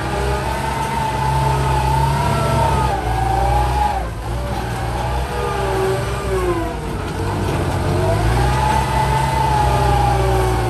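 Farm tractor engine working under load while pushing soil, revving up twice with a whine that rises and falls along with the engine speed.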